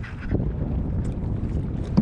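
Wind rumbling on the microphone, with a few light knocks and one sharper knock near the end as a landing net is handled in a kayak.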